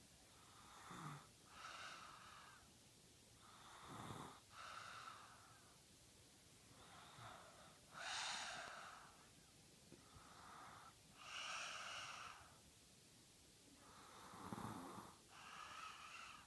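Faint, wheezy snoring: slow breaths in and out, about five breath cycles spaced three to four seconds apart, with quiet gaps between them.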